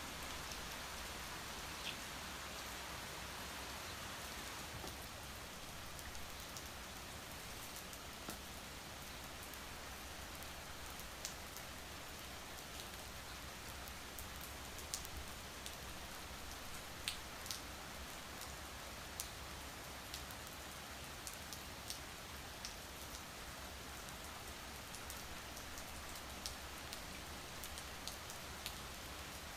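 Steady rain falling, an even hiss with scattered sharper drop ticks on a surface.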